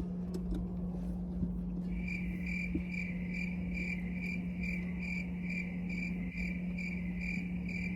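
A steady low hum, joined about two seconds in by a high electronic beep that repeats evenly, about twice a second.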